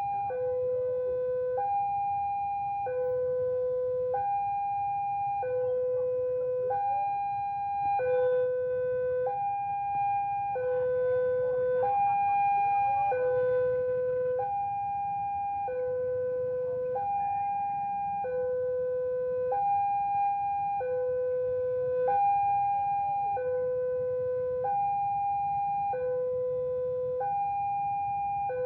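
Electronic two-tone warning signal alternating between a low and a high tone, each held a little over a second, repeating evenly without pause, over a low background rumble.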